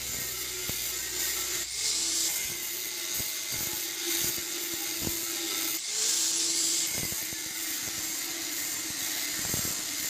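Electric angle grinder with a cutting disc running at a steady high whine, cutting into the steel shell of a refrigerator compressor with a gritty hiss of metal being cut. The sound breaks off briefly a couple of times, as the disc is lifted and set back to the cut.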